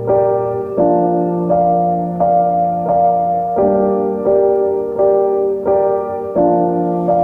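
Background music: a keyboard or electric piano playing a simple repeating pattern of chords, a new note or chord struck about every 0.7 seconds.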